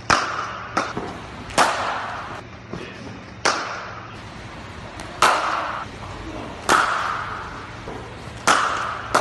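Cricket bats striking cricket balls in practice nets. There are sharp cracks every second or two, about six loud ones with fainter strikes from other lanes between them.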